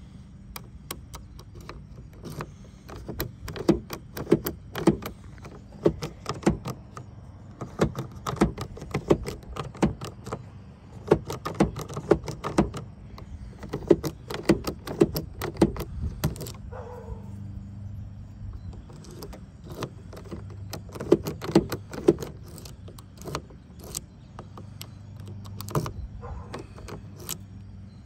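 Metal key clicking and rattling in a pickup truck's door lock cylinder as it is worked in, jiggled and turned. Many sharp clicks come in clusters, with a steady low hum underneath.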